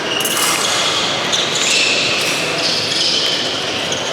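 Steady hiss-like background noise of a competition hall, with no distinct blade clashes or strikes.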